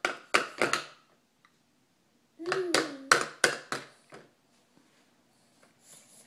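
A spoon clicking and tapping against a plastic bowl: a quick run of four or five sharp taps, then three more about three seconds in. A toddler makes a short wordless vocal sound between them.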